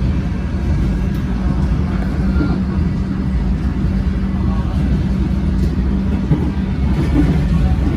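Melbourne suburban electric train running at speed, heard from inside the carriage: a steady low rumble of wheels on track with a constant hum underneath.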